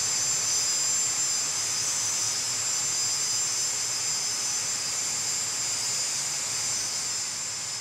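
Jet engine running steadily: a high-pitched turbine whine over a constant rushing roar.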